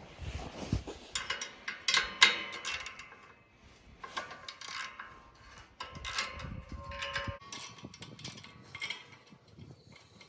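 Hand tools and metal parts clinking and knocking while bolts on an engine mount are being worked, a run of irregular clicks and scrapes with a few short ringing metal knocks.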